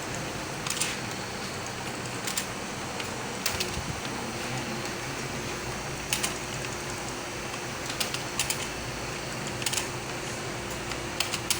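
Computer keyboard keys pressed slowly and unevenly during a home-row typing test: single keystrokes or quick pairs about every second or two, over a steady background hum.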